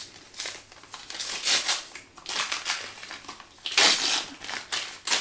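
Gift wrapping crinkling and rustling as a small wrapped parcel is opened by hand, in a series of irregular bursts, the loudest about four seconds in.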